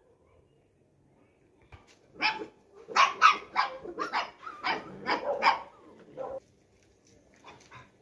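A dog barking in a quick run of about ten barks, starting about two seconds in and stopping a little over a second before the end.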